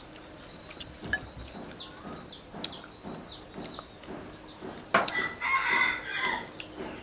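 A rooster crows once about five seconds in, a loud call lasting nearly two seconds. Small birds chirp faintly throughout.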